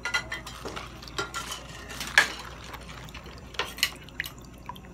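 Kitchenware clatter: scattered clinks and knocks of pots and dishes, the loudest a sharp knock about two seconds in.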